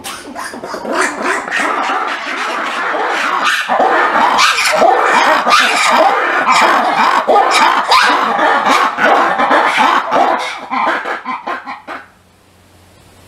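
A loud chorus of animal calls, many voices overlapping and rising and falling in pitch, which stops abruptly about twelve seconds in.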